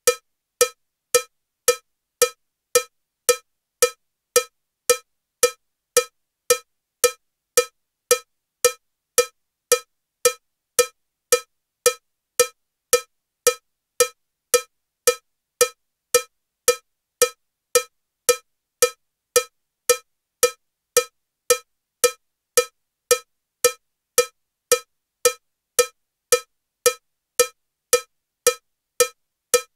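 Metronome with a cowbell sound ticking at 112 beats per minute: short, identical cowbell strikes just under two a second, evenly spaced, every beat the same with no accent.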